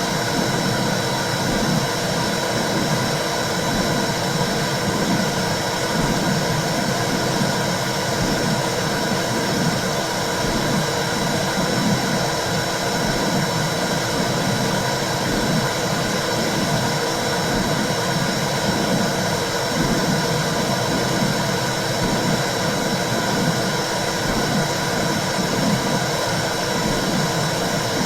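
Womb sound for soothing babies: a steady whooshing noise with a soft, rhythmic pulsing in the low range, like blood flow and a heartbeat heard from inside the uterus.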